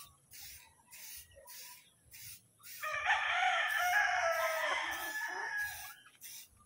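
A rooster crows once, a long call of about three seconds starting near the middle, the loudest sound. Underneath, short regular hissy strokes about twice a second from a hand rubbing the car's paintwork.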